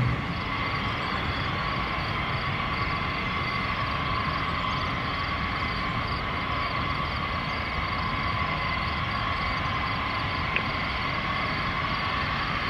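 Boeing B-52H Stratofortress's eight Pratt & Whitney TF33 turbofans at taxi power: a steady high whine over a broad rush of engine noise.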